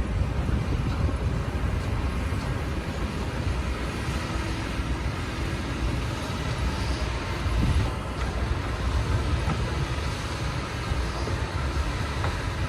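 Doosan DX225LC tracked excavator's diesel engine running hard with a steady low rumble as the machine works to climb a slope.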